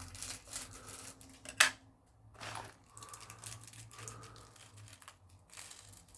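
Small plastic bags of Lego Dots pieces being opened: crinkling plastic and light clicks, with one sharp click about a second and a half in.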